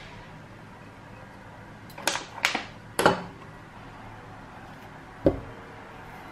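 A few sharp knocks of kitchen items being handled and set down, about two to three seconds in, then a single soft thud near the end as a peeled banana piece drops into a stainless steel mixing bowl.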